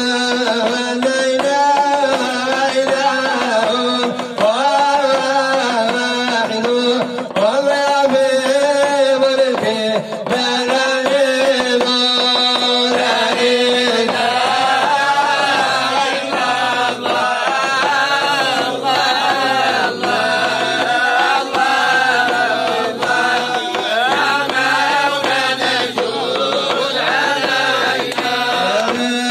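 Group of men singing a Sufi devotional chant in unison, with long held notes and percussion strokes keeping time.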